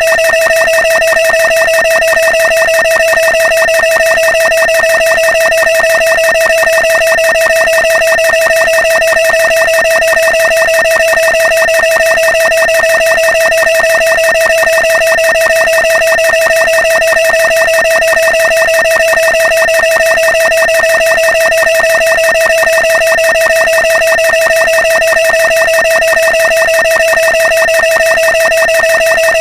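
A short, pitched sound effect repeated very rapidly and evenly at one unchanging pitch, the repeats running together into a continuous tone.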